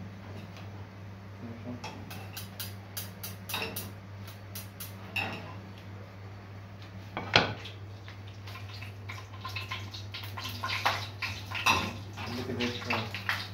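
Metal spoon clinking and scraping against a small frying pan and a plate as falafel are turned and lifted out of the oil. The clinks come irregularly, the sharpest about seven seconds in and a busier run near the end, over a steady low hum.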